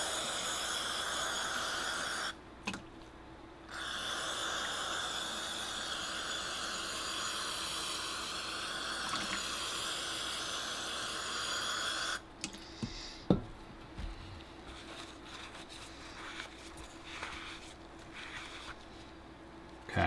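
Pressurized spray hissing steadily into a golf cart carburetor's float bowl to flush out loose rust and deposits. It runs about two seconds, stops briefly, then runs about eight seconds more. After it stops come a few light clicks and one sharp tap of handled parts.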